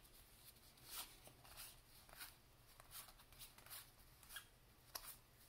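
Faint, irregular flicks and swishes of 1990-91 Pro Set hockey cards being slid one at a time off a hand-held stack as they are sorted through.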